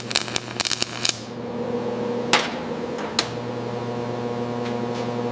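Welding arc crackling with rapid sharp pops for about a second, then a steady low electrical hum with a few scattered pops.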